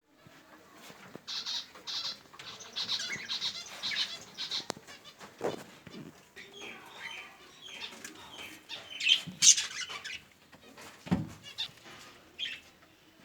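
Pet birds chirping and calling in short repeated bursts, loudest about nine seconds in, with a couple of low thumps.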